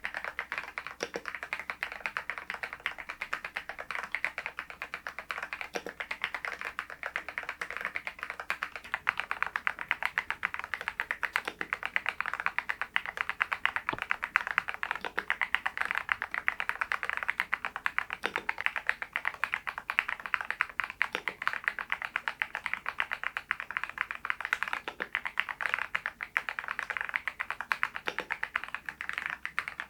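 Typing on an RK R99 mechanical keyboard fitted with its stock cream switches: a steady, dense stream of keystrokes.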